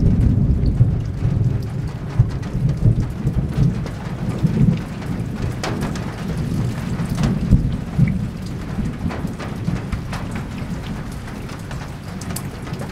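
Thunderstorm: a low rolling rumble of thunder, loudest at the start and dying away over the first half, over steady rain with scattered drops ticking on a tin roof.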